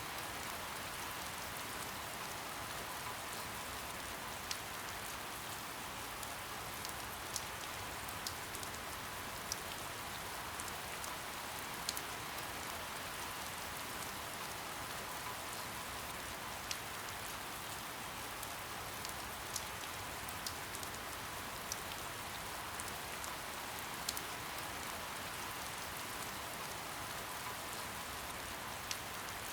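Soft steady rain: an even hiss with single drops tapping sharply now and then.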